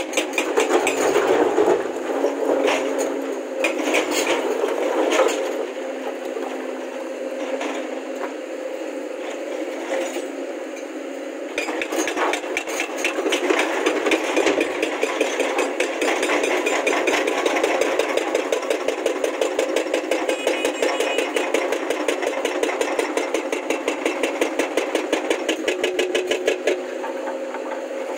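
Diesel engine of a Hyundai crawler excavator running under load with a fast, rhythmic clatter while it digs and loads rock into a dump truck, with a few louder knocks of rock.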